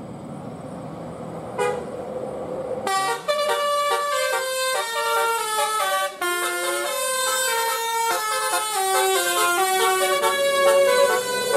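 Bus telolet horn playing a quick stepping melody of several loud tones. It starts about three seconds in, after a short toot, and includes one sliding note midway.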